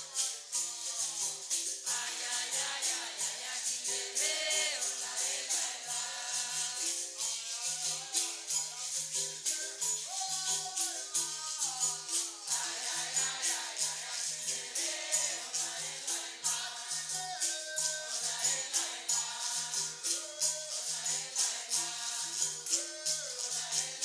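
Capoeira roda music: berimbaus plucking a steady repeating two-note rhythm with caxixi rattles shaking on every stroke, under voices singing.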